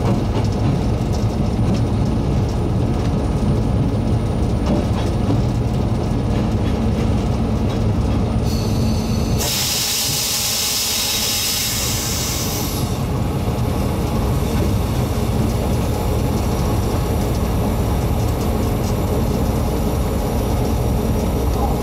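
Special train hauled by steam locomotive CT273 and diesel locomotive R123 running along: a steady engine drone and rumble. About nine seconds in, a loud hiss lasts around four seconds.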